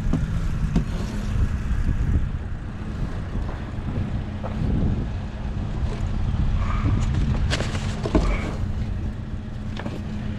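A vehicle engine idling steadily, with scattered short clicks and knocks of things being handled over it, a cluster of them about two-thirds of the way in.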